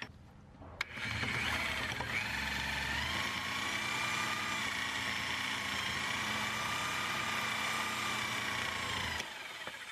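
Reciprocating saw (Sawzall) with a metal-cutting blade sawing through a sway bar link's lower mounting bolt. After a click about a second in, it starts up and runs steadily with a wavering motor whine, stopping shortly before the end.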